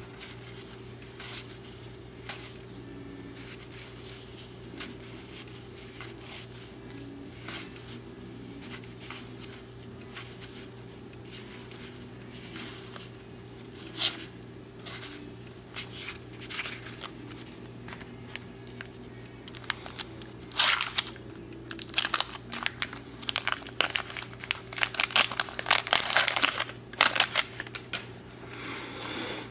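A stack of stiff cardboard trading cards being flipped and shuffled in the hands, cards rubbing and snapping against each other. The handling grows busier and louder in the last third, with crisp crackling rustles. A steady low hum runs underneath.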